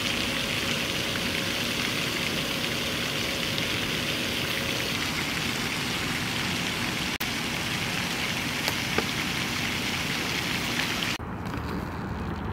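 Pond spray fountain: a water jet shooting up and splashing steadily back onto the water surface with a constant hiss. About 11 seconds in it cuts off abruptly to a quieter low rumble.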